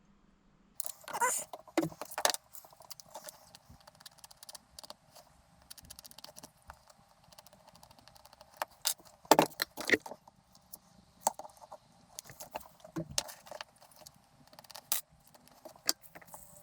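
Irregular clicks, knocks and light rattling of small metal and plastic parts and tools being handled, with louder clusters about a second in and near the middle.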